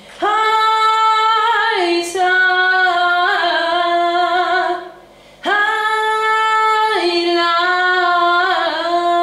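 A single voice singing the same vocal phrase twice. Each time it holds a high note, then steps down to lower notes with small ornamental turns.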